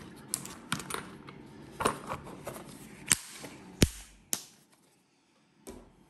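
Small metal lock-pick tensioner parts clicking and clinking against each other and against a hard plastic carry case as they are handled and put away: a run of sharp, irregular clicks and knocks, the loudest about four seconds in, and one more click near the end.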